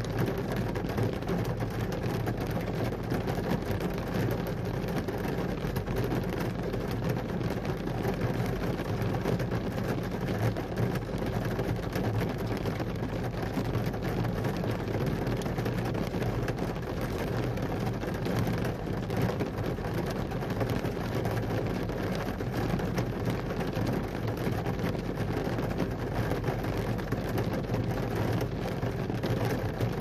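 Sudden summer rain shower falling steadily on forest trees and a wet dirt road: an even, unbroken hiss with a dense patter of drops.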